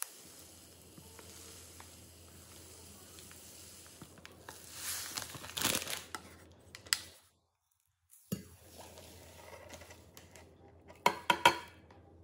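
A plastic bag of raw sugar crinkles and rustles as sugar is poured out of it. Near the end comes a quick run of sharp clinks as a plastic jug of sugar is tipped against a stainless steel pot.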